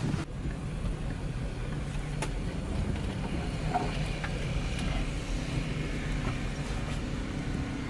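Car driving along, a steady rumble of engine and road noise heard from inside the cabin.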